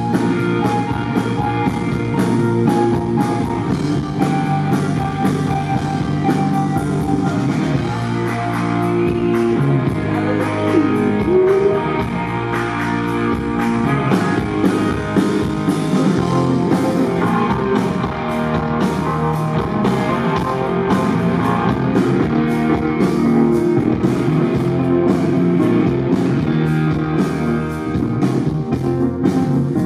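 A rock band playing live: electric guitar, keyboard and drum kit. A steady drum beat comes through more clearly in the second half.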